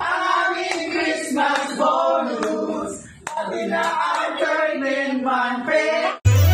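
A group of people singing and shouting together in chorus, with some hand clapping, briefly dropping off about halfway. Just before the end it cuts abruptly to Christmas music with jingle bells.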